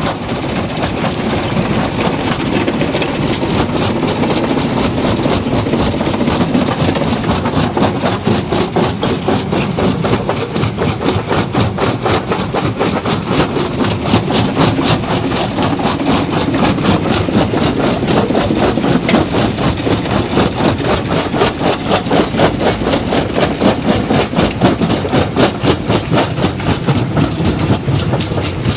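Stone crusher machine running, with a loud, continuous clatter and a fast, even pulsing beat, typical of a crusher breaking rock.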